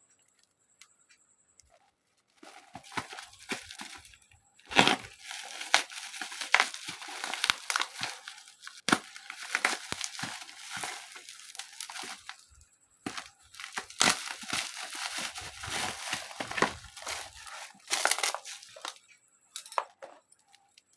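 Packaging being torn open and crinkled by hand: a dense stretch of rustling and tearing with frequent sharp snaps, starting a couple of seconds in and dying away near the end.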